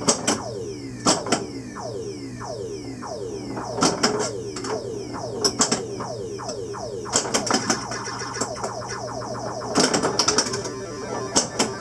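Williams Black Knight pinball machine in play: a run of quick falling electronic sound effects from its sound board, mixed with sharp clicks and clacks of the flippers, solenoids and ball striking the playfield. A steady low electrical hum runs underneath.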